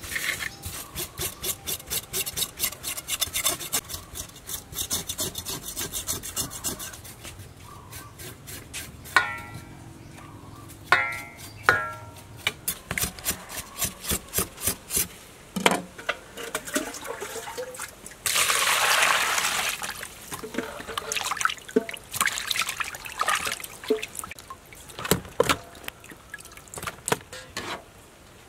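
Hands scrubbing slimy fish with coarse salt in a metal bowl, in quick, rhythmic rubbing strokes of about three a second, to strip the slime off the skin. A few ringing knocks on the bowl come in about ten seconds in, and a short burst of water sounds a little past the middle.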